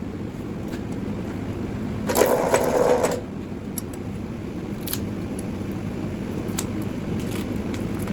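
Vevor wire stripping machine running steadily while stripping the insulation off 350 kcmil copper cable. About two seconds in, a louder rough grinding lasts about a second, and a few sharp clicks are scattered through.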